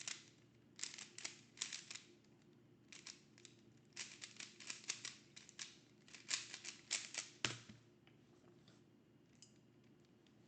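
Rubik's cube being turned quickly in a speedsolve: bursts of rapid plastic clicking and clacking with short pauses between, which stop with a soft knock about seven and a half seconds in.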